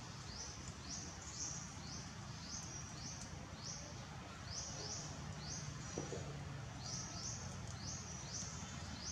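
Forest ambience: a short, high, buzzy chirp repeated about twice a second in runs, over a steady low rumble.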